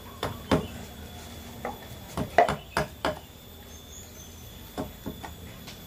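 Hand carving of wood for a barong mask: irregular sharp taps and knocks of a carving tool on the wood, some in quick pairs, with a faint steady high tone underneath.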